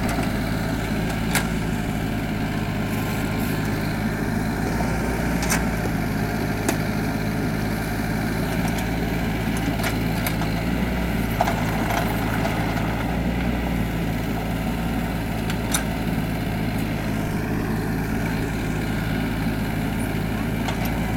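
Mini excavator's diesel engine running steadily, with a few sharp clicks or knocks scattered through.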